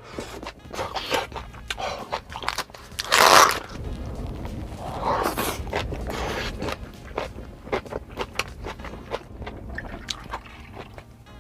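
Close-miked chewing and biting of grilled beef intestines (gopchang and makchang): a run of quick wet mouth clicks, with two louder noisy swells, about three seconds in and again around five to six seconds.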